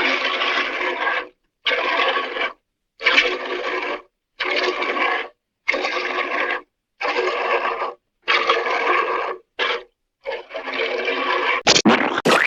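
Cartoon sound effect: a rasping, scraping stroke repeated about nine times, each about a second long with short silences between, one of them much shorter. Near the end a different effect starts, with sharp clicks and sweeping rises and falls in pitch.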